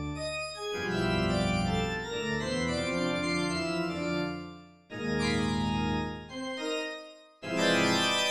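Organ playing dense, sustained atonal chords that shift and overlap. The sound breaks off suddenly about five seconds in, and again briefly near the end, where a new and louder chord enters.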